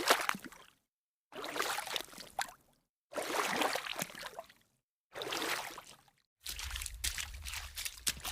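A run of separate short noise sound effects, each starting sharply and fading away, with dead silence between them. From about six and a half seconds a new effect begins: a steady low hum under a scatter of sharp clicks.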